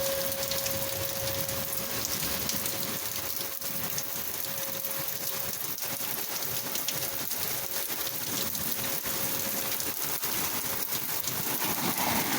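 Hard rain falling steadily, with an outdoor tornado warning siren as a single steady tone that fades out about ten seconds in.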